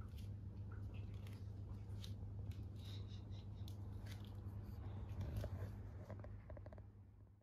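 Quiet indoor room tone: a steady low hum with scattered soft clicks and taps, fading out at the very end.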